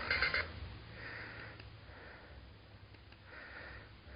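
A brief electronic tone cuts off about half a second in, then faint soft breaths close to the microphone, three of them, spaced a second or more apart.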